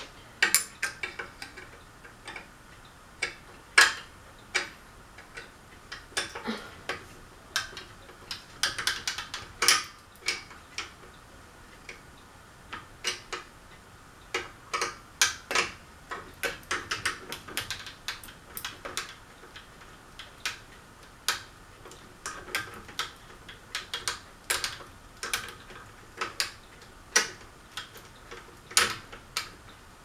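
Irregular sharp metallic clicks and clinks as the metal parts of a Crest ceiling fan's switch housing are handled and worked loose during removal.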